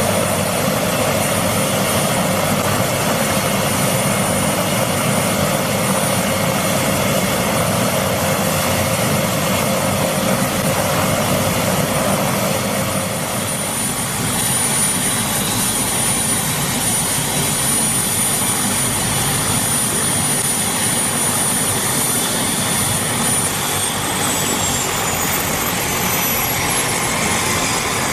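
Bell 407 helicopter's Rolls-Royce 250 turboshaft running on the ground with its main and tail rotors turning: a steady, loud rotor and engine noise with a high turbine whine. Near the end the whine falls in pitch.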